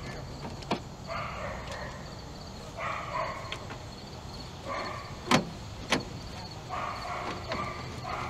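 A dog barking over and over, each bark drawn out and repeating every second or two. Two sharp clicks, the loudest sounds, come a little past halfway, alongside screwdriver work on the truck's cowl screws.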